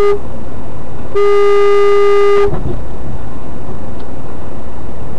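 Car horn: a brief toot, then about a second later a long steady honk of a little over a second, both on one pitch, over a steady rumble of traffic and engine noise.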